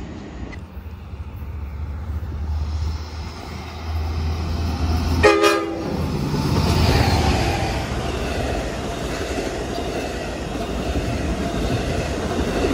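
Long Island Rail Road push-pull train of bilevel coaches approaching: a single short horn blast about five seconds in, then the steady rush and rumble of the coaches rolling past close by.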